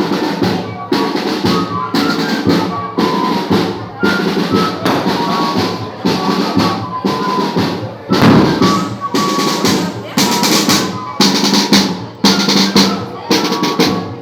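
Banda de pífanos playing: fifes carry a melody in short high notes over a steady beat of zabumba bass drum and snare drum, with a louder hit about eight seconds in.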